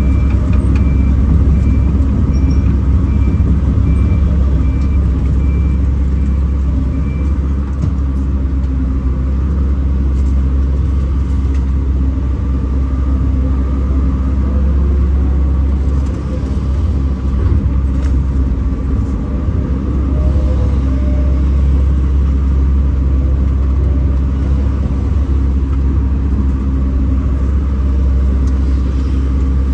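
Kobelco SK210 excavator's diesel engine running steadily. A high-pitched beep repeats about twice a second and stops about seven seconds in.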